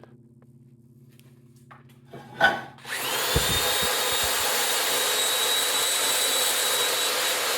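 A power tool with a wire brush spins up about three seconds in, its whine rising quickly to a steady high pitch, then runs steadily as it scrubs corrosion and rust off a steel battery hold-down. Before it starts there is only a low hum and a knock.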